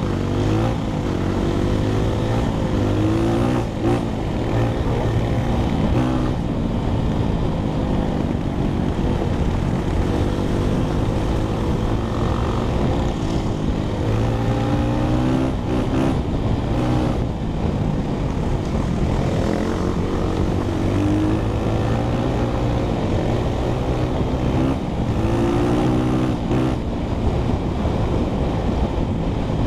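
Honda CRF100F dirt bike's single-cylinder four-stroke engine running under way on a gravel trail, its revs climbing and dropping again and again as it is ridden through the gears.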